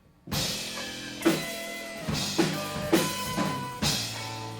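Rock band playing, drum kit and guitar over held bass and chord notes, cutting in abruptly just after the start with a steady beat of drum hits.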